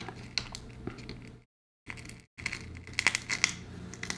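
Small tools and fingers working on an opened phone: scratchy clicks and crinkling over a steady low hum. The sound cuts out abruptly twice.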